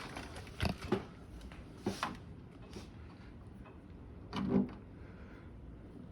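Scattered clicks and knocks of tools and parts handled inside a car door: a few sharp clicks about a second in, another near two seconds, and a louder clunk with rustling later on.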